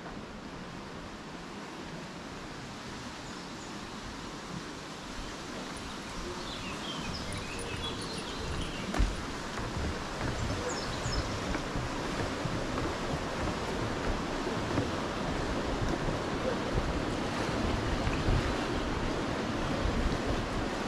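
Wind buffeting the microphone over a steady rushing outdoor noise, growing gradually louder, with a few faint high chirps about a third of the way in and a single sharp click near the middle.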